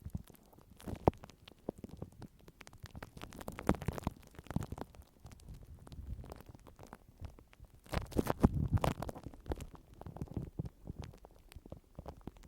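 Close-miked ASMR trigger sounds: irregular scratching and crackling with soft low thuds, busiest about eight seconds in.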